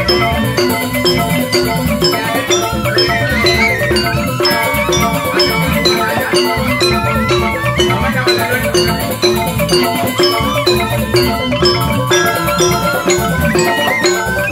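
Joged bumbung gamelan playing: bamboo xylophones struck with mallets in fast, busy patterns over a steady beat, with a kendang hand drum.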